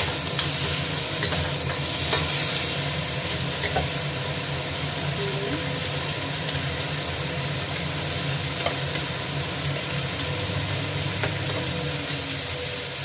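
Beef ribs and chopped garlic sizzling steadily in a stainless steel wok, with a wooden spatula scraping and knocking against the pan a few times in the first few seconds.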